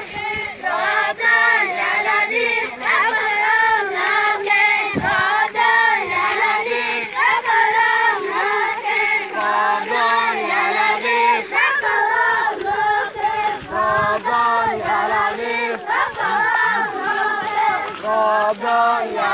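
A group of children chanting and singing together in a rhythmic, repeated refrain, a prayer for rain.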